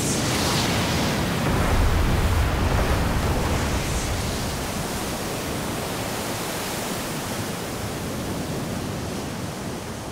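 Sea waves breaking over a rock shelf and forcing water up through blowholes in jets of spray. A continuous rushing wash, heaviest and deepest about two seconds in, then slowly easing.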